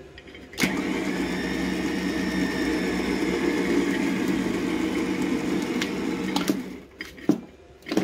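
ZXR 9000 lb truck winch's 12-volt electric motor and gear train running smoothly under power from the remote controller, starting about half a second in and stopping about six and a half seconds in. A couple of sharp clicks follow.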